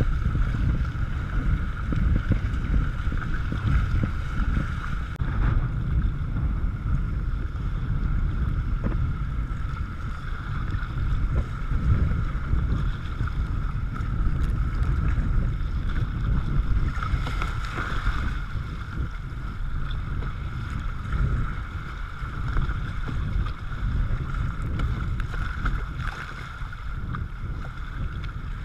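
Whitewater kayak running river rapids: rushing, churning water and paddle-stroke splashes against the hull, with wind rumbling on the microphone.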